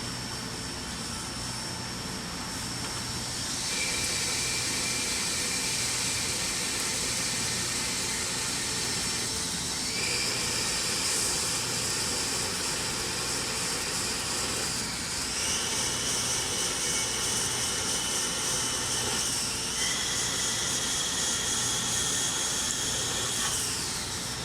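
Nakamura-Tome Super NTM3 CNC turning center running a machining cycle. A high whine steps up in pitch four times and drops away near the end, over steady machine noise and a hiss.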